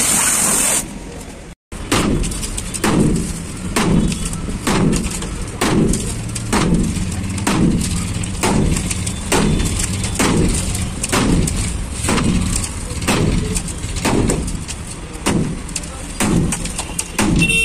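Sledgehammer blows on the rusted steel side wall of a dumper truck body, about one blow a second, each a heavy metallic bang with a short ring. A short burst of noise comes before the hammering starts.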